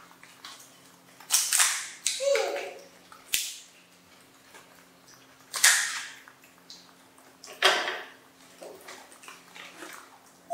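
Short bursts of plastic crinkling, clicking and scraping from plastic cups and plates being handled while monkeys eat, with a short falling squeak about two seconds in and again at the very end, over a faint steady low hum.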